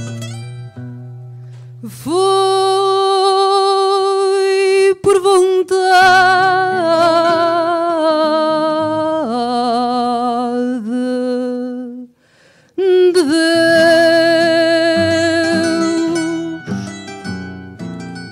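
A woman singing fado in long held notes with vibrato, accompanied by plucked Portuguese guitar and classical guitar. The guitars play alone briefly at the start and again near the end, and the voice breaks off for a moment about twelve seconds in.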